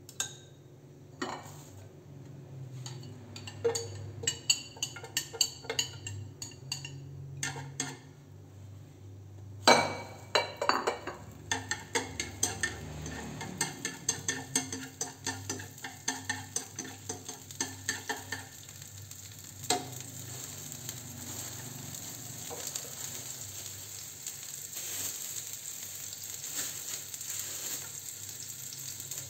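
Peeled garlic cloves frying in hot oil in a nonstick frying pan, pushed around with a spatula that taps and scrapes the pan. Light clicks come first; about ten seconds in there is a loud clatter as the sizzle begins, and the sizzle grows steadily louder.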